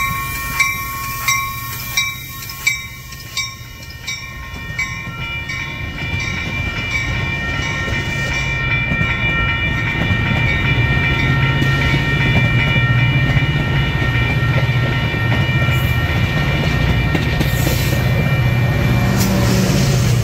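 Metra bi-level commuter train pulling out and passing close by. Its low rumble and wheel noise build from about six seconds in and stay loud. Through the first few seconds a bell-like ding repeats about three times every two seconds, its ringing going on under the train noise.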